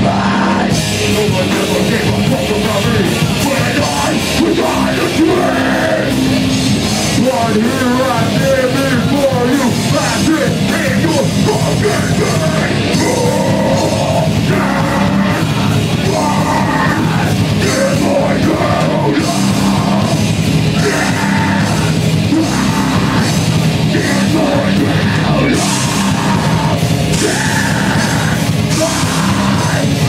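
A heavy metal band playing live, loud and continuous: drums and guitars with yelled vocals over them.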